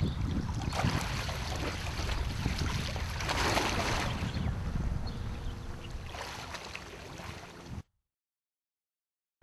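Water splashing and churning as a scuba diver swims along the surface beside a small rowboat, loudest about three to four seconds in, over wind rumbling on the microphone. The sound cuts off suddenly near the end.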